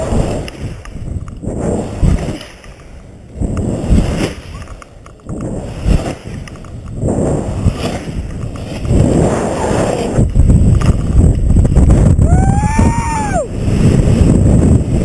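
Wind rushing over the microphone of a paraglider pilot's camera during acro manoeuvres, surging and dropping as the pilot swings, then loud and steady over the last few seconds. About twelve seconds in, a high tone rises and falls once over a second or so.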